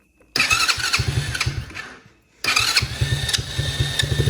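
Tao Tao 110 quad's small single-cylinder engine cranking over in two tries of about two seconds each, with a short pause between, trying but not catching: it is cold and the choke is off.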